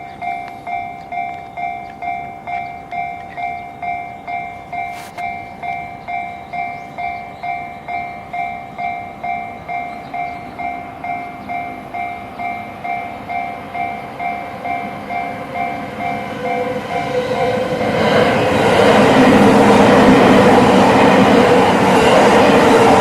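Japanese level-crossing warning bell ringing with its electronic two-tone chime at a steady beat of about two and a half strokes a second. About seventeen seconds in, a Yamanote Line electric train comes through the crossing, its running noise and wheel clatter building up loud and covering the bell.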